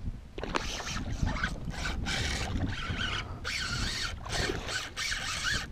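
Hooked redfish splashing at the water's surface beside the kayak in repeated bursts, over low wind rumble on the microphone.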